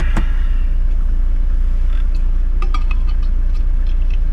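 4WD engine running with a steady low drone, heard from inside the cabin. There is a sharp click right at the start and a few light clinks and rattles later.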